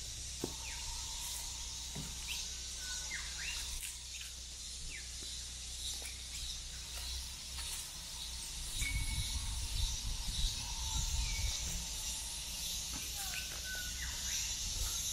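Bushland ambience: scattered short bird chirps and calls over a steady high hiss, with a low rumble coming in about halfway through.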